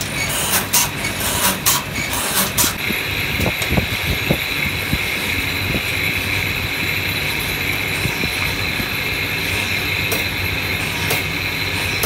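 Belt-driven lathe in a brass-parts workshop running with a steady high whine, with low knocks from the machine's working. Sharp metal clicks and knocks come in the first few seconds, before the whine sets in about three seconds in.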